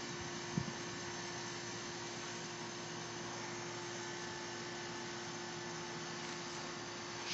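Steady hum on one pitch over a constant hiss, with a single brief low thump about half a second in.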